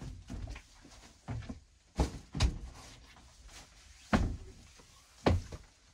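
Heavy footsteps and thumps on the wooden floor and steps of a narrowboat cabin as someone climbs toward the stern hatch: a run of separate knocks, the loudest about two seconds in, again half a second later, and twice more past four and five seconds.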